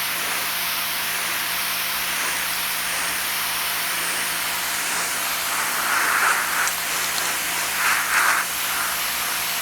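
Pressure washer spraying, a steady hiss of the water jet with two brief louder swells about six and eight seconds in.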